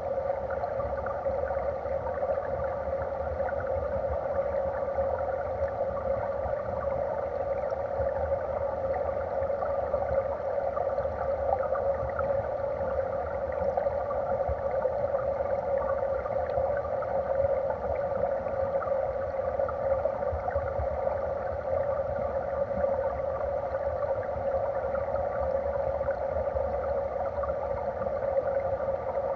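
Mountain stream current heard underwater: a steady rushing noise with a fine crackle of bubbles and turbulence over a low rumble.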